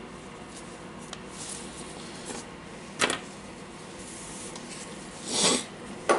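Small parts being handled on a workbench: a few faint clicks, a single sharp knock about three seconds in, and a brief scraping rub near the end, over low background hiss.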